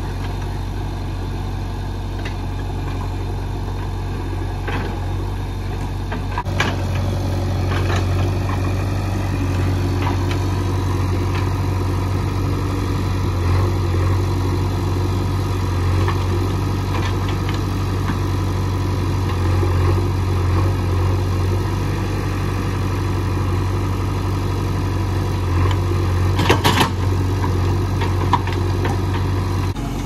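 JCB 3DX backhoe loader's diesel engine running steadily as the machine works. It gets louder about six seconds in, and a few sharp knocks and clanks sound now and then, the loudest cluster near the end.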